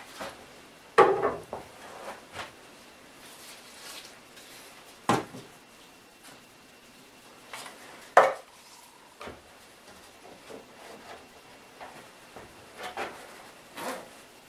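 Scattered sharp knocks and clacks of thin wooden rib strips being handled against the boat's frame. The loudest come about a second in, about five seconds in and about eight seconds in, with lighter taps between.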